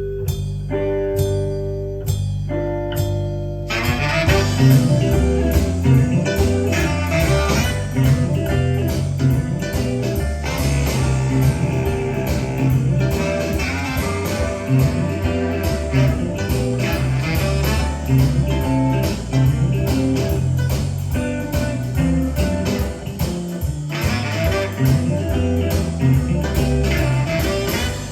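Blues music with guitar playing back from a cassette on a Nakamichi Dragon deck. A sparse opening of held notes gives way about four seconds in to the full band.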